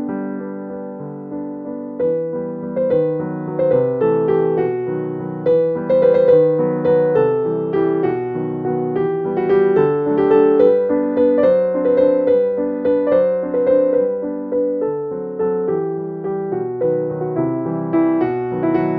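Background piano music: a steady flow of struck notes.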